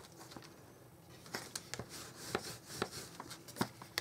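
Cardstock pieces being handled and pressed into place on a work surface: light paper taps and rustles, starting about a second in.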